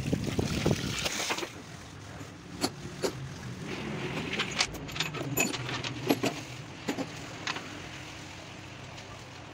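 Water from a hose splashing over a metal cylinder head for about the first second and a half. Then scattered light metallic clinks and taps as metal engine parts are handled, over a steady low background hum.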